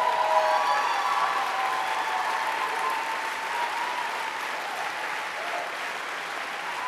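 Large audience applauding and cheering, with a few whoops near the start; the applause is loudest early and eases off slowly.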